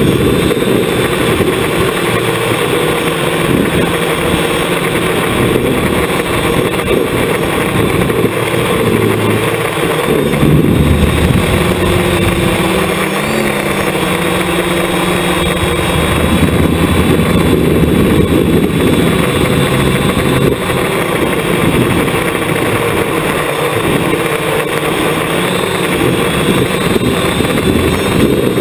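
Hexacopter's six electric motors and propellers humming in flight, heard from a camera mounted on the craft itself. The pitch shifts up and down as the throttle changes.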